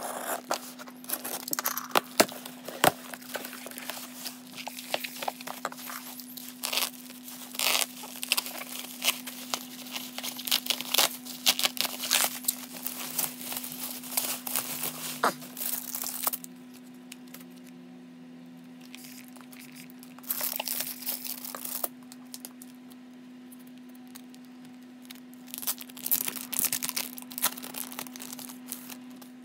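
A parcel being unpacked by hand: packing tape and a cardboard box torn open, then bubble wrap and plastic film crinkling and rustling. The handling is dense and crackly for the first half, then comes in two shorter bursts with quieter gaps, over a steady low hum.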